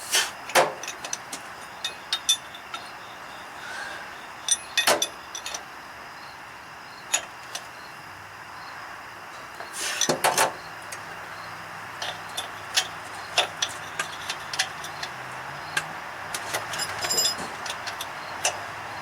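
Irregular metal clinks and clanks of hand tools and bolts under a truck, over a steady hiss; a low steady hum comes in about eight seconds in.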